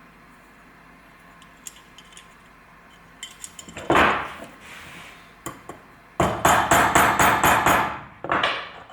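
Hammer tapping metal on metal, driving a steel spring pin through an emergency brake handle's ratchet mount plates: a few light clicks, one sharp strike about four seconds in, then a quick run of rapid taps and one more strike near the end.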